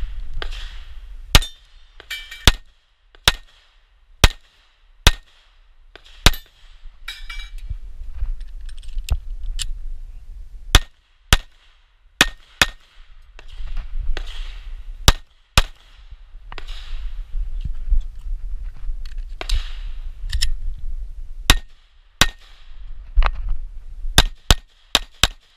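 A Glock 43 9 mm subcompact pistol being fired in a timed stage: about two dozen sharp shots, some single and some in quick pairs a fraction of a second apart, with pauses between strings. A low rumble runs between the shots.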